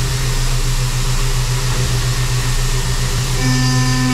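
CNC machining center milling an aluminum LS engine block under flood coolant: a steady machine hum with the hiss of coolant spray, as the cutter machines the counterbore for the cylinder sleeve flange. About three and a half seconds in, a pitched cutting whine with several tones comes in.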